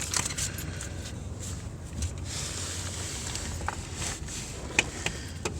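A few light, scattered clicks and knocks of a replacement starter motor being handled and fitted up into its mounting hole under the car, over a steady low background hum.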